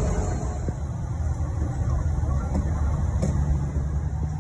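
Low, steady vehicle rumble, with a faint steady hum joining about three seconds in.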